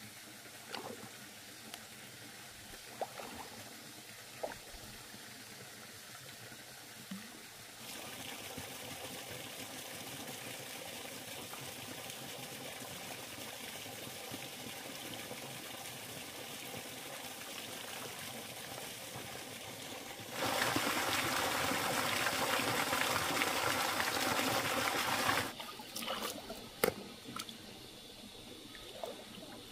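Water sloshing and trickling as a metal basin of freshwater clams is rinsed in shallow river water, with a few small clicks early on. About twenty seconds in, a louder steady rush of pouring water lasts some five seconds, followed by a few sharp clicks of clam shells knocking together.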